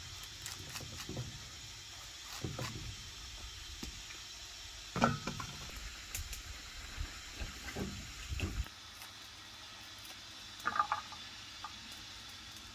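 Kitchen knife knocking and tapping on a round wooden chopping block as a banana blossom is sliced: a few scattered knocks, the loudest about five seconds in, over a steady high hiss.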